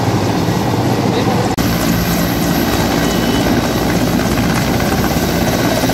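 Mi-17 military transport helicopter hovering, its rotor and turbines running with a steady, loud drone. The sound jumps briefly at an edit about one and a half seconds in.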